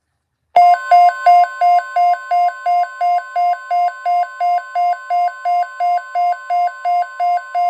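Weather-radio emergency alert: a steady alert tone near 1 kHz (NOAA Weather Radio's 1050 Hz warning alarm tone) with a pulsing two-tone beep over it, repeating about three times a second. It starts abruptly about half a second in and signals an incoming severe-weather alert.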